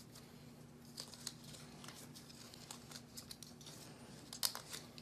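Faint crinkling and light clicks of Teflon (PTFE) thread tape being pulled off its roll and wrapped around the threads of a 1-inch PVC close nipple, with a brief louder crackle near the end. A faint steady hum lies underneath.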